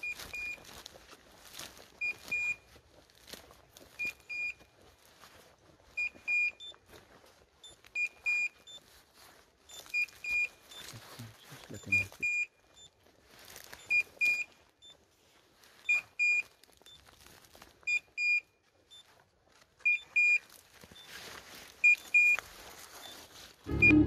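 A hunting dog's beeper collar giving short, high double beeps about every two seconds, the signal that the setter is on point, with brush rustling in between.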